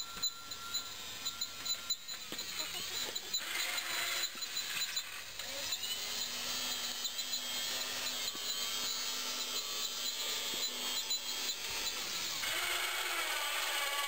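Converted electric garden tractor's 24-volt DC motor and drive whirring as it drives along, getting louder as it comes closer, with scattered clicks in the first couple of seconds.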